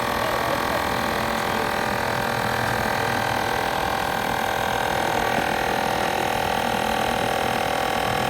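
Portable electric tyre inflator running steadily with a continuous whining hum as it pumps up a bicycle inner tube toward a preset pressure.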